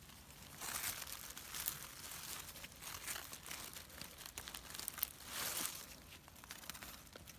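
Dry leaf litter and pine needles rustling and crackling in several short bursts, with a few sharp snaps, as a gloved hand picks mushrooms from the forest floor.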